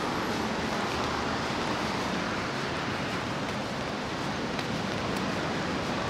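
Cars passing on a busy coastal road: a steady wash of traffic noise with no single event standing out.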